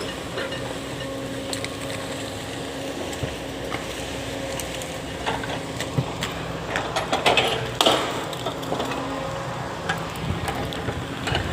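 Excavator's diesel engine running steadily, with a burst of loud knocks and clanks about seven to eight seconds in.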